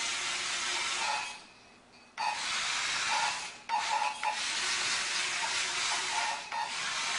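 Steady hissing noise in four long stretches of one to three seconds, each broken off by a short drop.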